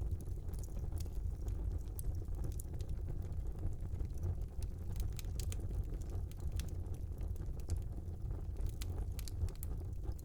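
Wood fire burning in a small fireplace: a steady low rumble of flames with frequent sharp crackles and pops, thickest in the middle and latter part.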